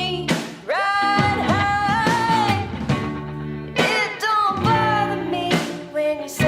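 A song: a sung vocal with gliding, held notes over guitar, with sharp drum hits here and there.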